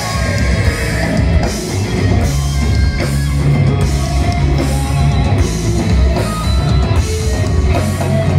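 Live heavy metal band playing an instrumental passage: distorted electric guitar, bass and a drum kit with regular cymbal hits, without vocals.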